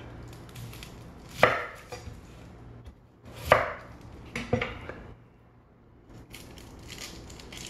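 Chef's knife chopping an onion on a wooden cutting board: two loud knocks of the blade hitting the board and a few lighter ones, unevenly spaced, dying down in the last couple of seconds.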